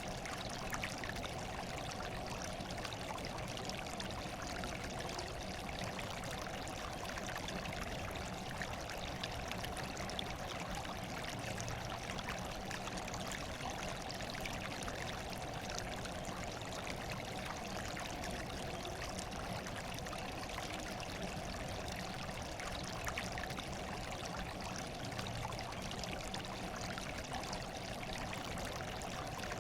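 Steady running water, a continuous trickling and pouring with faint small splashes, unchanging throughout.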